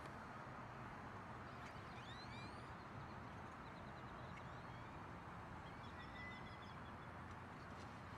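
Faint calls from a flock of great-tailed grackles: a few rising whistles about two seconds in and short quick clicking rattles later, over a steady low background noise.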